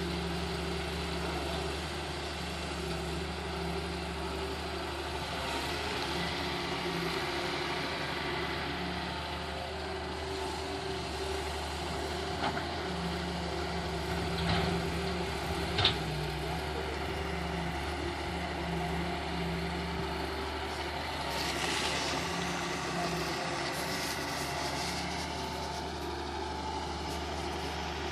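Wheel excavator's diesel engine running steadily, with a few short knocks near the middle.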